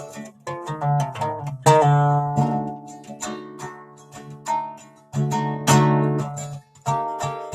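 Acoustic guitar strummed in chords, each strum ringing out and fading before the next, with a short break near the end before the strumming picks up again.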